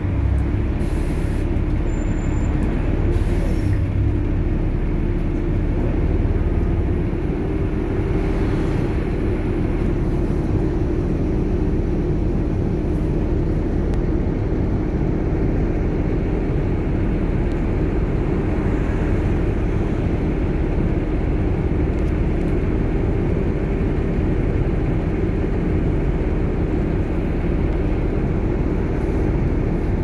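Volvo B7TL double-decker bus under way, heard from inside: a low engine drone with a steady whine over it from the whiny ZF automatic gearbox and the 'hoover' noise.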